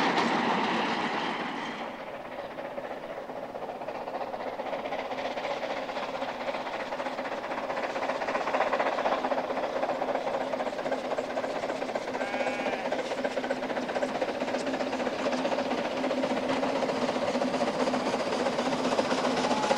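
Narrow-gauge steam train running, with wheel clatter on the rails: loud at first and fading over the first two seconds, then another train slowly drawing nearer.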